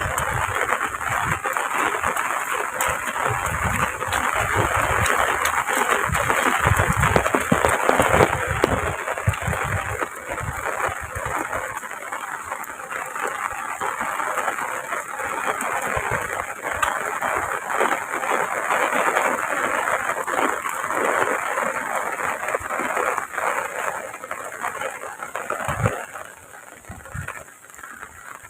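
Heavy rain falling, a dense steady hiss full of drop patter, easing off a little near the end.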